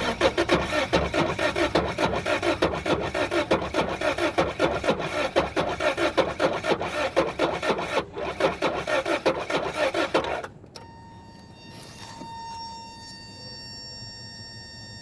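A car's starter motor cranking the engine in a fast, raspy, even rhythm for about ten seconds without the engine catching, then stopping abruptly: a no-start.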